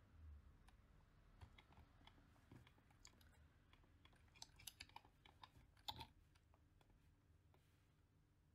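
Faint, scattered clicks and taps of a computer keyboard and mouse, otherwise near silence.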